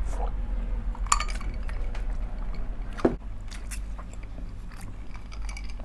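Close-miked eating sounds: chewing and sipping through straws, with light clinks of glass and a sharper knock about three seconds in, over a steady low hum.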